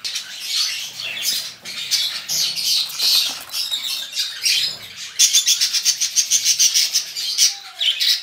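Masked lovebirds calling: harsh, high-pitched squawks and chirps, with a fast run of rapidly repeated calls from about five seconds in.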